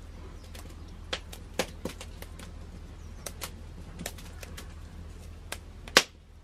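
Short crisp snaps of red spinach stems being broken by hand over a wooden chopping board, about eight scattered clicks with the sharpest about six seconds in. A steady low hum runs underneath.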